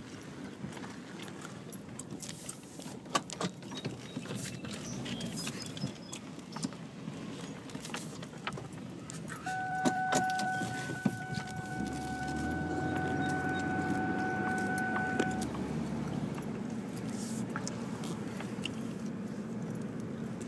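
A car driven slowly, heard from inside the cabin: a steady low engine and road hum, with scattered clicks and rattles. From about nine seconds in, a steady electronic-sounding tone holds for about six seconds and then stops.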